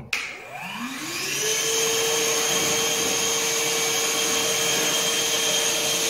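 Einhell TE-VC 18/10 Li cordless wet and dry vacuum switched on, its motor spinning up with a rising whine over about a second and a half, then running steadily with a high whine and the rush of air. It is still running on an almost drained battery.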